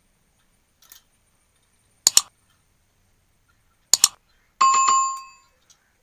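Pliers snipping through the wire of a table fan's metal guard: two sharp snips, each a quick double click, about two seconds apart. Near the end comes a brief metallic ring with a few quick strikes, fading within about a second.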